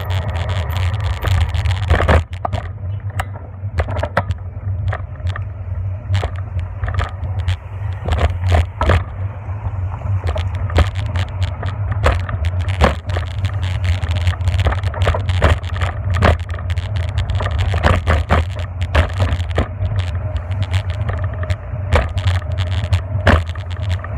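Ride noise from a bicycle-mounted camera: a steady low rumble, with frequent sharp rattles and knocks as the bike rolls over bumps in the pavement.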